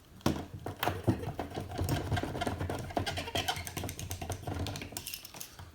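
Stanley utility knife sawing and scraping at a heavy-duty plastic zip tie on toy packaging: a rapid, irregular run of clicks and scrapes, with a sharper knock shortly after the start.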